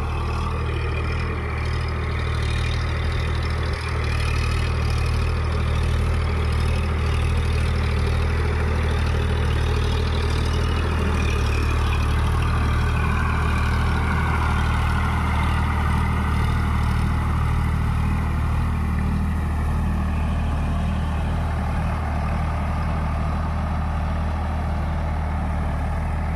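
Eicher Prima G3 551 4WD tractor's diesel engine running steadily under load, driving a rotavator through the mud of a flooded paddy field in medium-range second gear. A steady, low engine note that grows a little louder about four seconds in.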